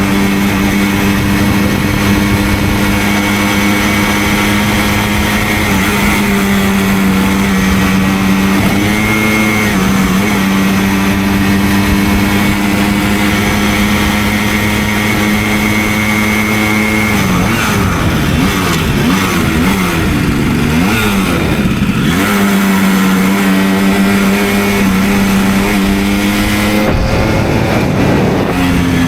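Simson two-stroke moped engine under way, holding a steady pitch while cruising. A little past halfway the engine speed swings down and up several times, then it settles and rises again near the end as it accelerates.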